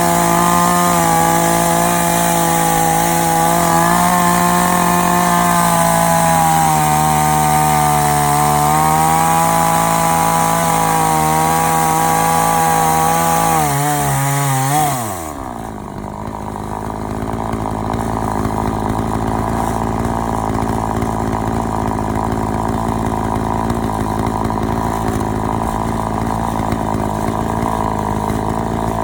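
Chainsaw on an Alaskan-style chainsaw mill running at high revs through a log, its pitch sagging a little under load. About halfway through it drops sharply as the throttle is let off, then runs on at a lower, steady pitch.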